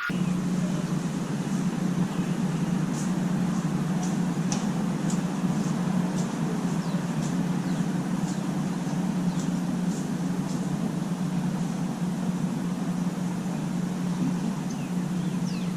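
Steady low machine hum with faint, scattered high ticks.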